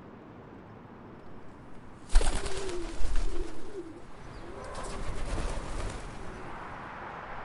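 Pigeons cooing, with a sudden flurry of wing flapping as they take off about two seconds in and a second burst of flapping a little later, over a low steady background noise.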